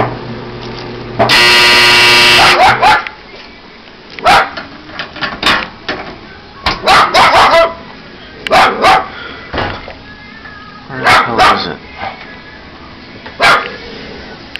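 A clothes dryer's buzzer sounds once for about a second, a loud steady buzz, then a dog barks again and again in short runs of one to three loud barks.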